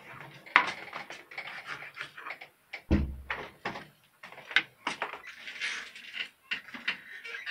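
Kitchen knife slicing a tomato on a plastic cutting board: irregular taps of the blade on the board between short scraping strokes, with one heavier knock and thump about three seconds in.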